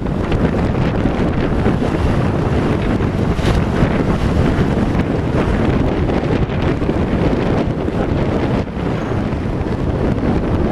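Wind buffeting the microphone: a loud, steady rumbling noise.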